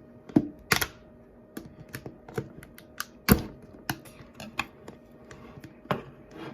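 Irregular sharp plastic clicks and taps of hands working at a slime tub's plastic packaging, trying to get it open; a few clicks are much louder than the rest.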